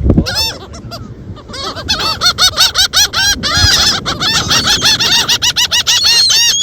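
Gulls calling in a flock: short, repeated squawks, a few at first, then many overlapping calls packed closely together from about a second and a half in.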